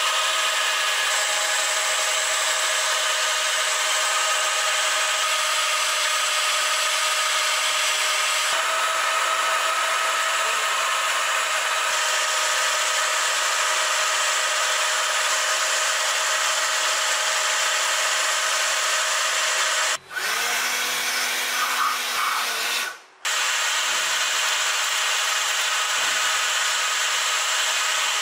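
Milling machine running an end mill through a block of damascus steel (C45 and 4340): a steady, high-pitched cutting hiss with a whine over it. The sound changes abruptly a few times, and for about three seconds two-thirds of the way through a lower hum comes in.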